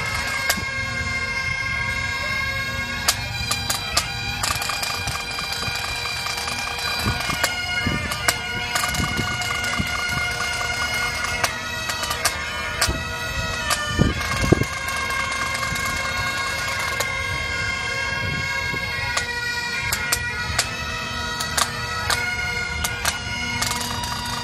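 Scottish pipe band playing: Highland bagpipes sounding a tune over their steady drones, with snare drum strokes and a few loud bass drum beats about halfway through.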